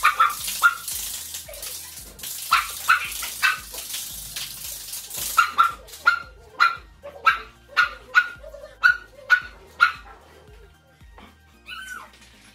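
Small dogs barking repeatedly: a few barks near the start, then a steady run of sharp barks about two a second through the middle, stopping about ten seconds in.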